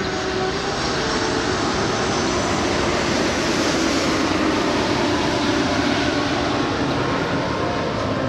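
Engine noise of something passing, a loud, even rushing sound that swells to a peak about midway and then eases off.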